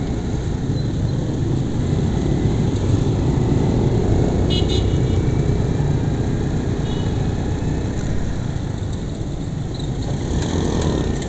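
Motorcycle running through street traffic: a steady low engine and road rumble, with passing motorcycles and cars. A brief high chirp sounds about four and a half seconds in.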